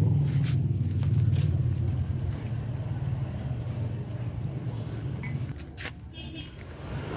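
A low, steady motor-vehicle engine rumble that fades away about five and a half seconds in, followed by a couple of short clicks.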